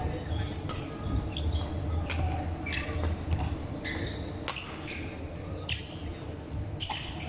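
Badminton rally: rubber-soled court shoes squeaking sharply on the wooden floor, mixed with the crisp clicks of rackets striking the shuttlecock, over a steady low hum.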